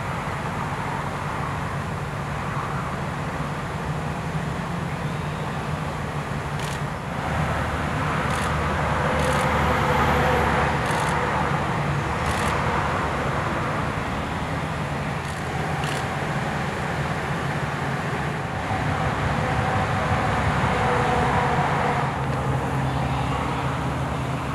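Steady drone of road traffic, swelling and easing as vehicles pass, with a few faint high ticks over it.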